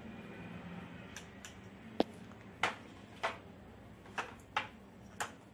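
Kitchen utensils clicking: a plastic spoon tapping against a ceramic bowl and a steel mixing bowl as paste is scraped off. There are about eight short, sharp taps at uneven intervals, the loudest about two seconds in.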